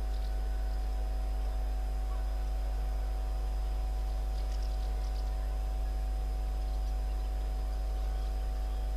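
Steady low hum of a distant standing freight locomotive, with a few faint bird chirps.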